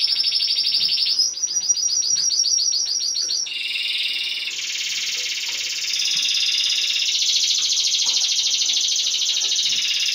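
Timbrado canary singing a continuous run of fast trills, switching to a new trill about a second in and again around three and a half seconds, then holding one long trill.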